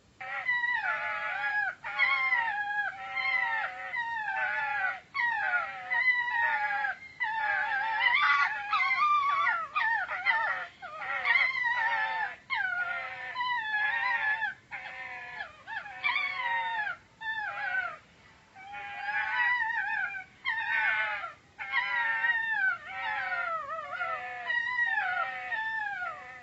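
A dog howling and whining in a long run of wavering, gliding calls, each a second or two long, with short breaks between them.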